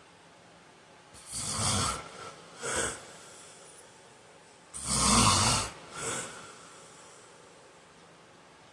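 A man snoring loudly in his sleep: two long snores about three and a half seconds apart, each followed by a shorter, quieter second sound.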